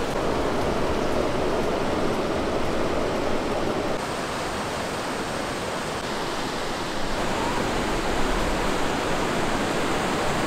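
Fast mountain creek rushing over rocks and through rapids: a steady, even wash of flowing water.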